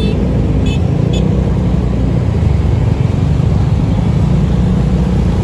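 Road traffic and vehicle engines rumbling steadily, loud and low, with a few short high-pitched chirps in the first second.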